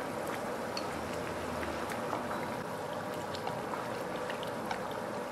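Hotpot broth bubbling steadily in its pot, with a few light clicks of tableware scattered through.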